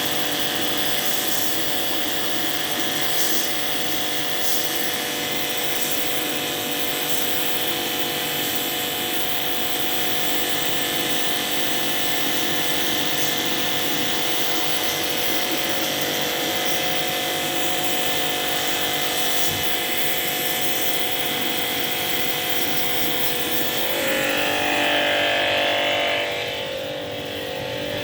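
A small motor running steadily with a constant whine. It grows a little louder and harsher near the end, then eases off.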